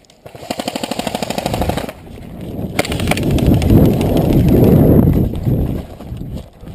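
Airsoft gun firing a rapid full-auto burst of about two seconds. Then a loud, rough rumble of handling and movement noise on the head-mounted camera's microphone as the wearer moves off, with a couple of sharp clicks about three seconds in.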